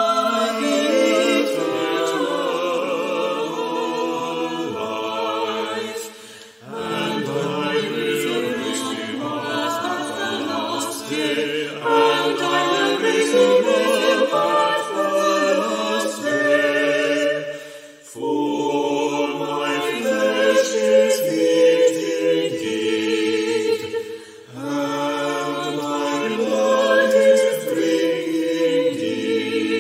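Choir singing unaccompanied, in long sustained phrases separated by brief pauses.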